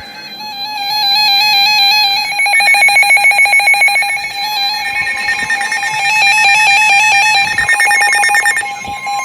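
Several NOAA weather radios sounding their electronic alert alarms together, signalling an incoming severe thunderstorm warning. Overlapping rapid beeping and trilling at several pitches grows louder about a second in.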